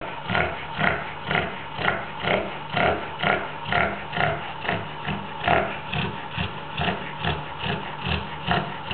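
Pregnant Labrador retriever snoring, in quick regular snorts about two a second.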